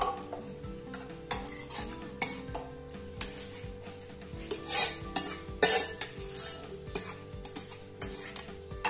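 Steel spoon scraping and clinking against a kadhai as fried onion-tomato masala is scooped out into a steel mixer-grinder jar. The irregular scrapes and taps are loudest about five and six seconds in.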